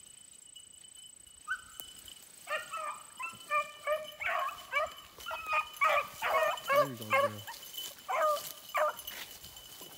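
Rabbit-hunting beagles baying on the chase: short, repeated bays and yelps, several a second and overlapping from more than one hound, starting about two and a half seconds in.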